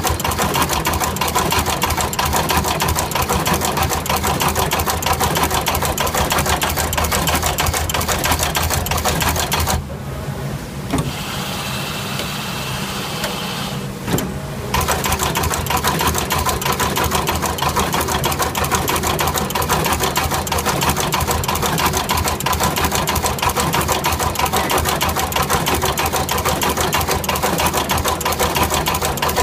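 Radial component insertion machine running: a rapid mechanical clatter from its insertion head over a steady low hum, stopping for about four seconds around ten seconds in and then starting again.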